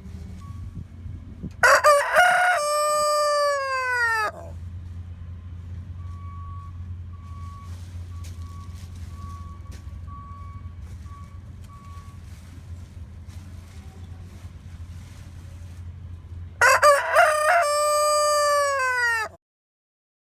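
Rooster crowing twice, once about two seconds in and again near the end, each crow a loud call lasting about two and a half seconds that drops in pitch as it ends. A steady low rumble runs underneath and cuts off just after the second crow.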